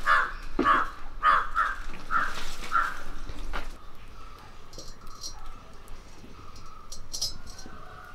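A crow cawing, about six harsh caws in the first three seconds. After that it is quieter, with a few faint crackles from the wood fire and a thin steady tone.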